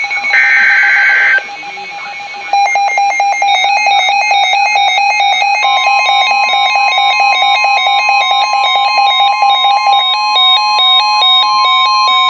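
NOAA Weather Radio SAME alert header: a one-second burst of harsh two-tone digital warbling about half a second in. From about two and a half seconds a rapid electronic beeping pattern starts, and about halfway through the steady 1050 Hz weather-radio alert tone joins it, marking the start of a warning.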